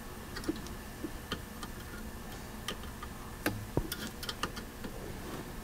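Scattered small clicks and ticks, irregular and a few a second at most, as a hand-held adjustment tool turns the single-turn offset trim pot on a Sansui AU-717 amplifier's circuit board during a fine DC-offset adjustment. The loudest pair of clicks comes a little past halfway.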